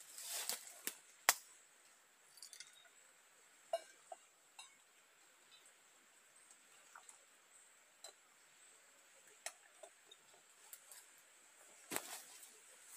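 Scattered light clinks and knocks of metal camp cookware being handled, a stovetop moka pot among it, with the sharpest knock about a second in and a few more near the end.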